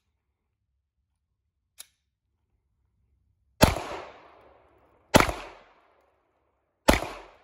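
Three 9mm pistol shots from a Glock G34 Gen5, spaced about a second and a half apart, each followed by a short echoing tail. A single faint click comes about two seconds in, before the first shot.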